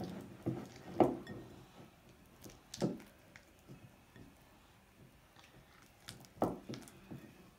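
Silicone spatula stirring thick, wet slime in a glass mixing bowl: irregular squishing strokes with the spatula knocking against the glass, loudest about a second in, near three seconds and about six and a half seconds in. The contact lens solution activator is being mixed into the glue and paint.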